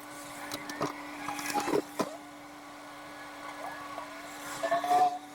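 A steady motor hum with several knocks and clanks over it, some ringing briefly, the loudest cluster near the end, as of metal sign-installation hardware being handled.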